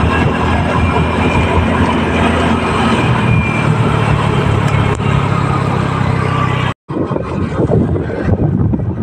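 Motorcycle engine running steadily under way, with heavy wind rush on the microphone. About seven seconds in the sound drops out for an instant and comes back as mostly wind buffeting, the steady engine tone gone.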